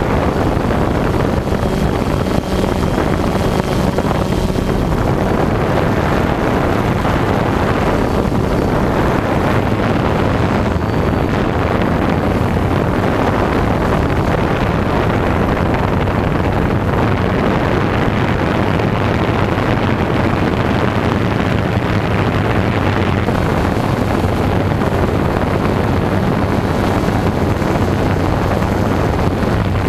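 DJI Phantom quadcopter's four motors and propellers running steadily, heard from the GoPro Hero 3 mounted on it, with a low hum under wind rush on the microphone.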